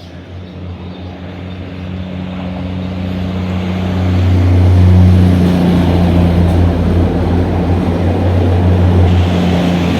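Train approaching, a low engine drone with rumbling noise that grows steadily louder to a peak about five seconds in, then stays loud.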